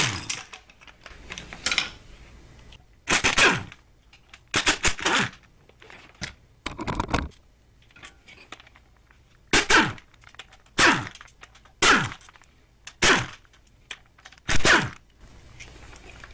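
Pneumatic air wrench in about a dozen short bursts a second or two apart, spinning out the 10 mm bolts that hold the oil pump to an engine block.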